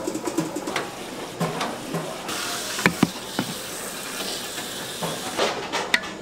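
Bakery kitchen work: scattered clinks and knocks of utensils and equipment, with a steady hiss that starts about two seconds in and stops about three seconds later.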